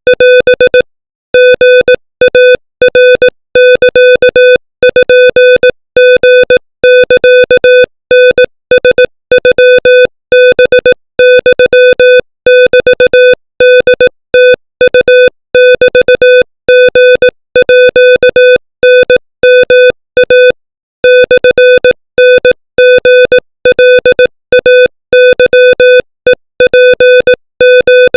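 Morse code at 25 words per minute, sent as a single steady electronic beep keyed rapidly on and off in dots and dashes, with a few longer pauses between words. It is spelling out Thai text in Morse.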